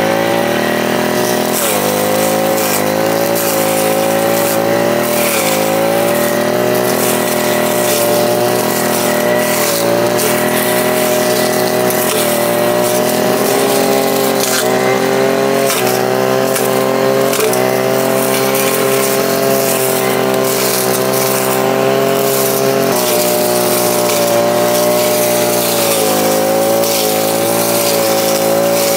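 Maruyama MBS420RS 43cc two-stroke backpack brush cutter running at high throttle while cutting tough, thick grass. The engine note stays high and steady, sagging and recovering slightly now and then as the cutting head takes load.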